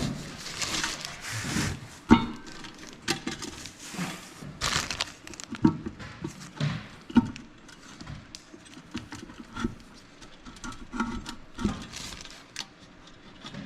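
Hands handling fan parts: irregular light clicks, knocks and rustling as the wires are tucked into the ceiling fan's down rod and the rod is lined up on its mount.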